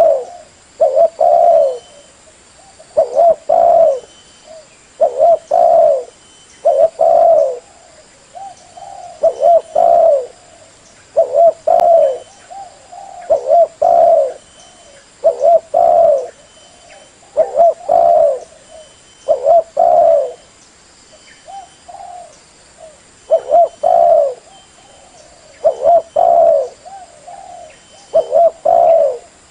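Spotted dove (cu gáy) cooing over and over: the decoy-dove call used to lure wild doves. The low coos come in short groups about every two seconds.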